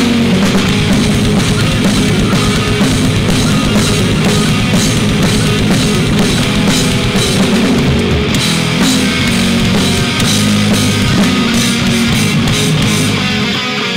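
Rock band playing live: electric guitars, bass guitar and a drum kit, loud and steady with a regular drum beat.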